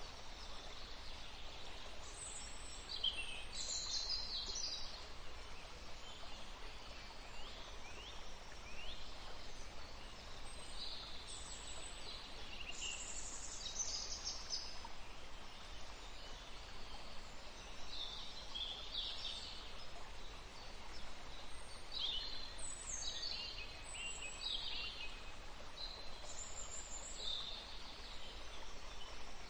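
Songbirds singing in short, quick, high twittering phrases, repeated every few seconds over a steady faint background hiss.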